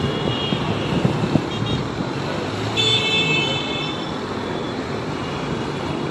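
Road traffic running in a jam, a steady low rumble of engines, with a car horn sounding for under a second about three seconds in and briefer, fainter toots earlier.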